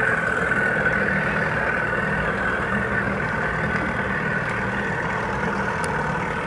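Small tiller outboard motor on a skiff running steadily at low speed, a low engine note with a steady high whine over it.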